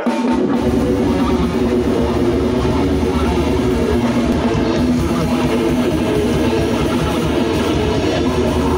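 A live rock band playing loud, with electric guitars, bass guitar and drums.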